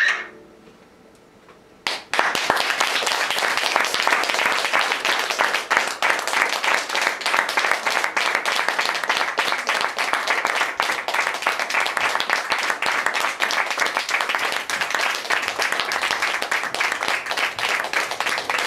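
An audience clapping together in steady applause, starting about two seconds in after a brief hush. A voice breaks off at the very start.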